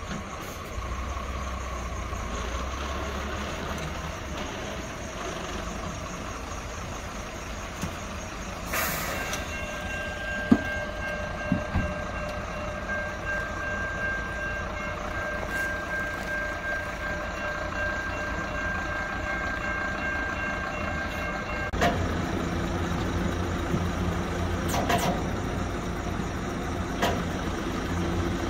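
Tilt-tray tow truck working at a crash scene: its engine runs throughout. A steady high whine holds for about thirteen seconds through the middle. A deeper, louder engine hum takes over near the end as the tray is tilted down, and there are a few sharp knocks along the way.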